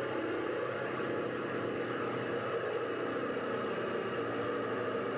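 A steady mechanical engine sound, an even drone with a hiss and a few faint held tones, with no breaks or change in level.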